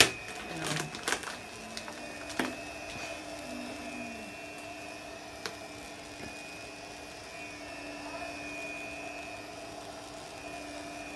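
A small electric motor whirring steadily. A few sharp knocks and a brief voice come in the first couple of seconds.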